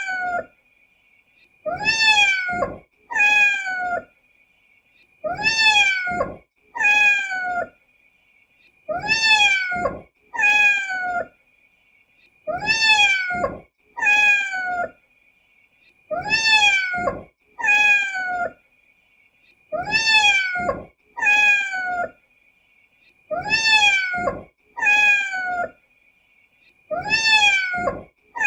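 Kitten meowing in pairs, a longer meow followed at once by a shorter one, with the pair repeating evenly about every four seconds, eight times over. A faint steady high whine runs underneath.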